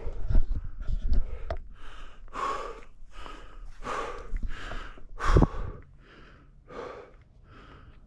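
A hiker breathing hard and fast while climbing a steep trail: a steady run of quick, heavy panting breaths, about two a second. Footfalls on the trail are heard in the first second and once about five seconds in.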